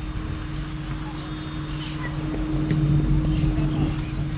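A steady low mechanical hum over a rushing noise, growing a little louder after about two and a half seconds, with faint distant voices calling.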